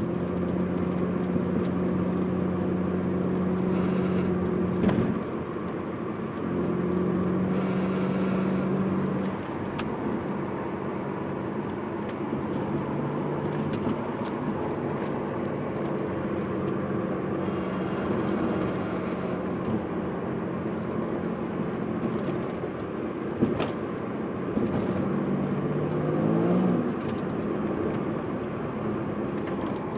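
A car making a low buzzing noise: a steady buzz tone that comes and goes in stretches of a few seconds over the car's steady running noise, with a brief rise in pitch near the end.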